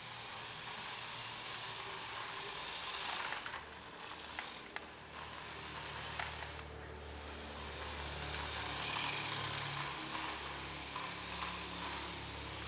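A vehicle being driven on ice: a steady hiss of tyre and surface noise over a low engine drone that grows stronger about halfway through, with several sharp clicks and knocks around the middle.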